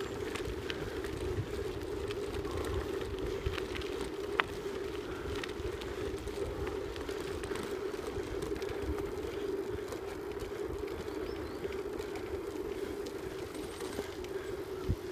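A vehicle rolling steadily along a gravel forest track: a constant mid-pitched hum over low rumble, with one sharp click a little over four seconds in.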